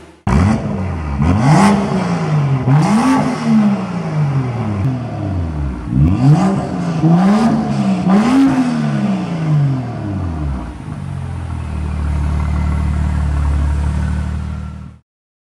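BMW M2's turbocharged straight-six, through an Akrapovic downpipe and M Performance exhaust, blipped five times from idle, each rev rising and falling back, with sharp cracks around several of the revs. It then settles into a steady idle before the sound cuts off near the end.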